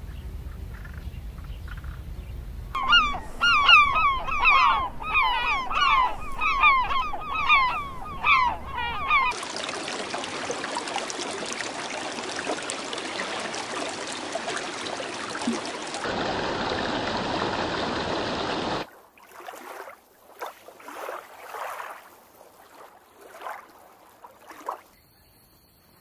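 Geese honking, a run of about a dozen loud calls roughly two a second over some six seconds. A steady rushing hiss follows for about ten seconds, then fainter scattered calls.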